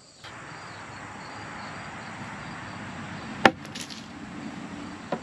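One sharp wooden knock about three and a half seconds in, as a 2x4 frame piece is handled, over a steady hiss of insects.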